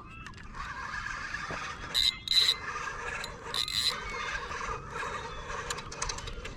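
Fishing reel being wound in against a hooked fish, a continuous rasping whir. There are short, louder squealing bursts, two at about two seconds in and one just under four seconds in, like the drag giving line.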